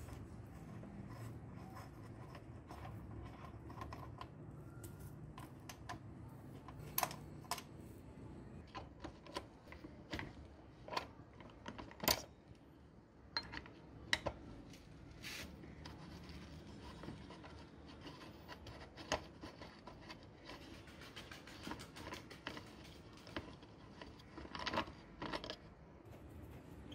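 Socket wrench working the headlight mounting bolts of a Honda CD 70 motorcycle: scattered light metal clicks and clinks of the socket and tool, with a quick run of clicks near the end.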